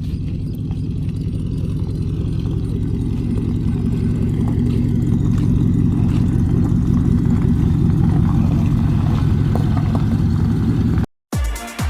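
Truck engine running steadily at idle, with a low, even hum that grows slightly louder over the first few seconds and then cuts off abruptly near the end.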